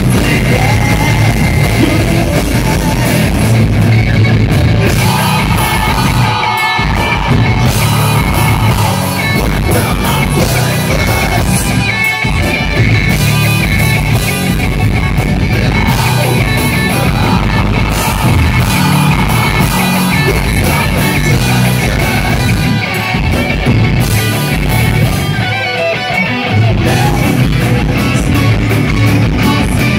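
Live metal band playing: two electric guitars, bass guitar and drum kit, with a vocalist singing and yelling into a handheld microphone. The music dips briefly a few times.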